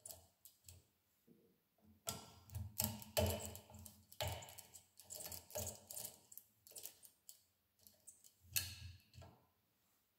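Metal lock pick tool being worked inside a clear practice lock cylinder: irregular light clicking and rattling of metal on the lock, in clusters, stopping near the end.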